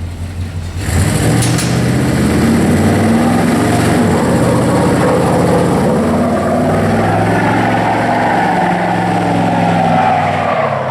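Engine of a 1985 Honda ATC250SX three-wheeler running. It gets louder about a second in, then rises and falls in pitch as it is revved and ridden.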